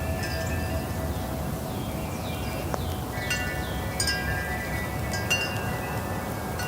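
Wind chimes struck irregularly by the breeze, their ringing tones overlapping and hanging on, with a busier cluster of strikes from about three seconds in. A steady low rumble of wind runs underneath.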